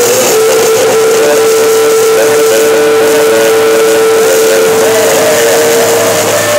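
Loud live band in a small room, a dense noisy wash of cymbals and amplified instruments with one note held steady for about six seconds that steps up slightly in pitch near the end.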